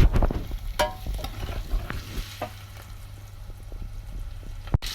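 Onions, garlic, dry red chillies and a mustard-cumin-dal seed mix frying in hot oil, sizzling steadily while being stirred in the pan, with a sharp knock at the start and a few scraping clicks and clinks of the utensil against the pan in the first second or two.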